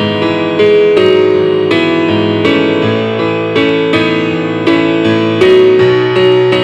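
Solo piano music, an instrumental arrangement with chords and melody notes struck at an unhurried, steady pace.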